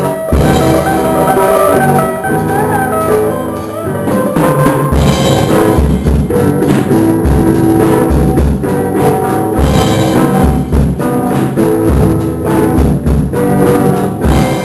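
Live rock band rehearsing a song without a lead vocal: drum kit keeping a steady beat under other instruments.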